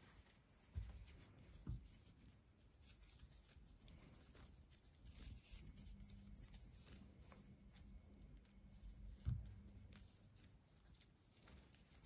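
Near silence with faint rustling and light clicks from crocheted paper-yarn pieces being handled, and three soft low thumps.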